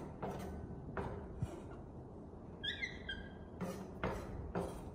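A few sharp knocks and clatters, with a brief high squeaky call from a small animal a little past halfway.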